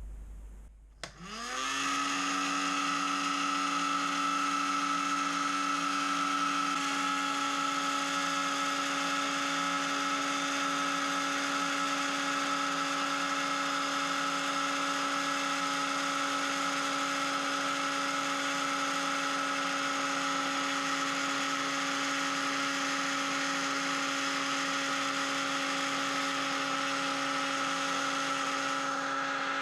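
Heat gun switched on about a second in: its fan motor spins up with a quick rising whine, then runs steadily with a blowing hiss, heating hard PC water-cooling tubing for bending.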